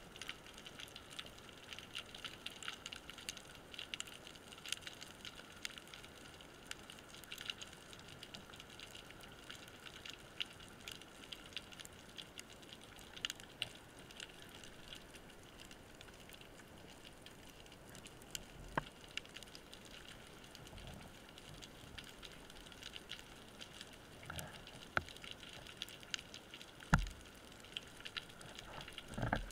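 Underwater crackle heard through a camera housing: a faint, continuous patter of many tiny clicks, with a few sharper knocks in the second half, the loudest a couple of seconds before the end.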